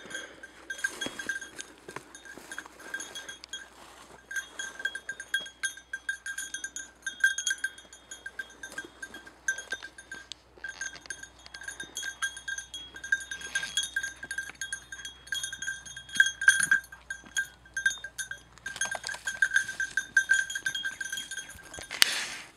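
A hunting dog's collar bell ringing on and off as the dog works through the scrub: a single-pitched jingle with many small clinks. Near the end there is a brief loud rush of handling noise.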